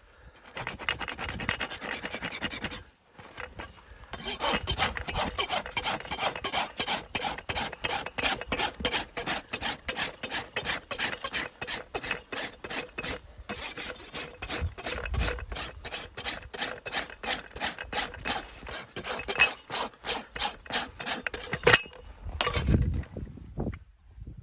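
Farrier's rasp filing a horse's hoof in quick, even back-and-forth strokes, about three a second, with a short pause about three seconds in and stopping near the end.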